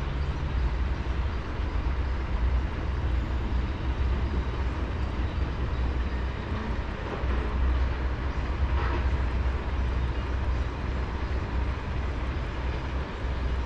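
Strong wind buffeting the microphone: a steady, gusting low rumble with a hiss of moving air over it.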